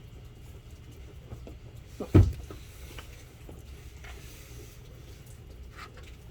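Light clicks of parts being handled, with one loud clunk about two seconds in, over a low steady hum.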